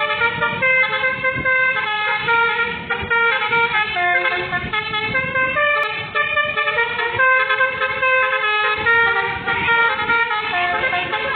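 Basuri V3 telolet multi-tone horn on a pickup truck playing a tune: a continuous run of bright horn notes stepping up and down in pitch.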